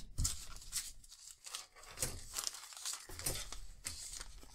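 Clear plastic parts bag holding a model-kit sprue crinkling as it is handled, in short irregular crackles.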